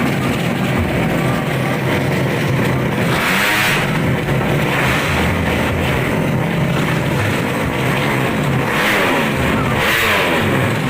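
Drag-racing motorcycle engines revving hard, with two louder surges of rising and falling engine pitch, about three seconds in and again near the end.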